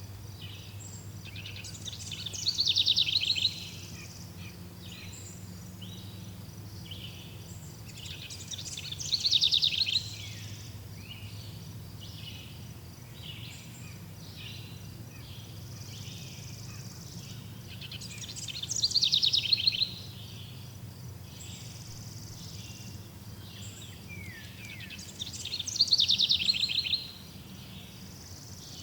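Forest birds singing: one bird gives a loud, rapid trilling song four times, about every seven seconds, with softer chirps from other birds in between. A faint steady low hum runs underneath.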